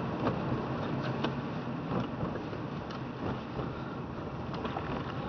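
Car driving on a wet road in heavy rain, heard from inside the cabin: steady engine and tyre noise, with raindrops ticking irregularly on the windshield.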